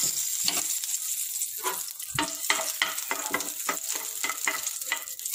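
Metal spoon scraping and knocking repeatedly, about three strokes a second, as it pushes a lump of ghee around a hot pan, over a light steady sizzle of the melting ghee.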